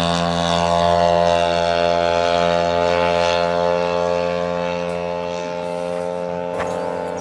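Engine of a one-third-scale Piper PA-18 Super Cub radio-controlled model plane running at high power as it lifts off and climbs away, a steady drone that slowly fades.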